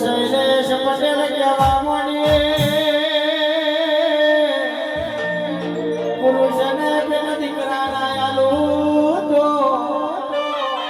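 Live Gujarati devotional music: a wavering sung melody over instrumental accompaniment, with a few deep beats about two seconds in.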